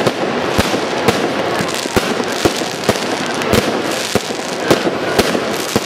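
Fireworks display: aerial shells bursting in an irregular string of sharp bangs, about two a second, over a constant crackling wash.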